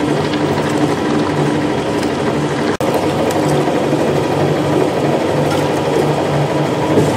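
Electric meat grinder running steadily, its motor humming and its auger churning as pork organs and meat are pushed down the feed throat and minced. The sound drops out for an instant once.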